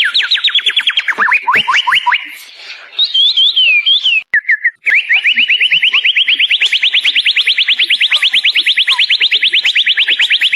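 A murai songbird singing a long, very fast trill of repeated downward-sweeping high notes, broken about three seconds in by a few slower descending whistles and a brief pause, then resuming as a long even trill.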